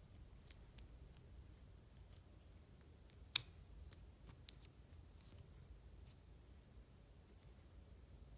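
Small objects being handled at close range: faint rustles and light clicks, with one sharp click about three and a half seconds in and a smaller one about a second later.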